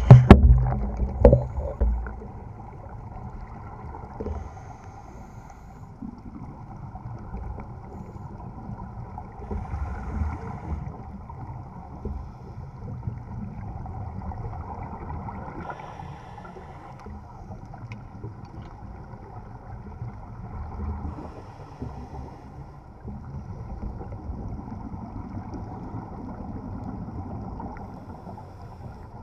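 Muffled underwater noise picked up through a dive camera's waterproof housing. Loud low thumps in the first two seconds give way to a steady low rumble, with a few faint swells of noise along the way.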